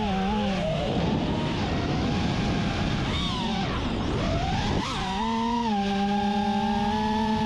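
FPV quadcopter's brushless motors and tri-blade propellers whining at a steady pitch. From about half a second to five seconds in the whine breaks up into a rushing, sweeping sound as the throttle changes through a manoeuvre, then settles back to a steady whine.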